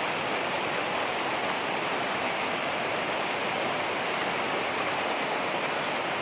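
Water rushing over rocks, a steady, unbroken rushing with no separate splashes.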